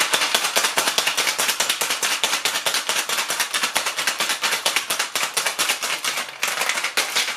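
A cocktail shaker being shaken hard by hand, its contents rattling against the sides in a fast, even rhythm of sharp clicks that stops near the end.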